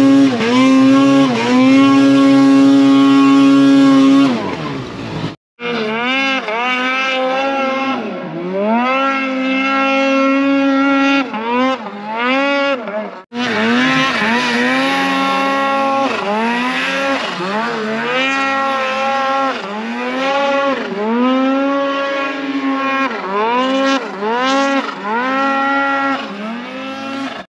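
Snowmobile engine revving, its pitch rising and falling again and again as the throttle is blipped and released, with a steady high-revving stretch near the start. The sound cuts out abruptly twice.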